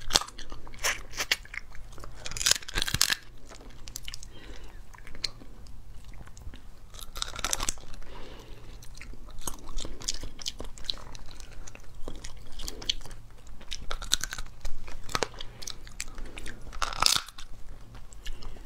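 Cooked crab claw shells cracking as they are broken open by hand and bitten, with crunching and chewing. Many sharp snaps throughout, with a few louder spells of crunching.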